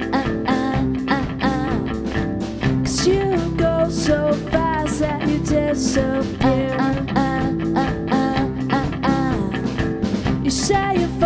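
Live pop-rock song: sung vocals over guitar with a steady beat.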